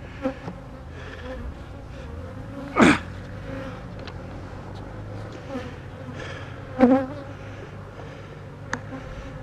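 Honeybees buzzing in a steady hum, with two brief louder buzzes about three and seven seconds in.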